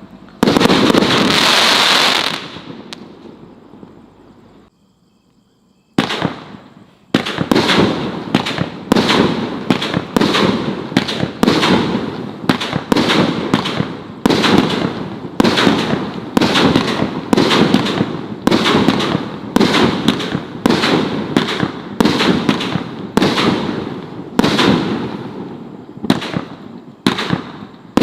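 Brothers Fireworks Badder And Radder consumer firework cake: a loud burst that dies away over a few seconds, a brief pause, then a steady run of shots about two a second, each ringing out before the next.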